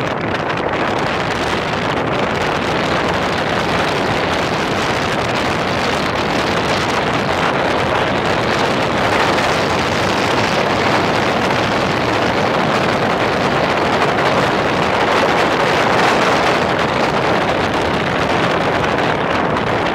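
Steady wind noise on the microphone of a camera mounted on a BMW motorcycle riding a gravel road, with the bike's engine running underneath. The wind covers most of the sound and grows a little louder partway through.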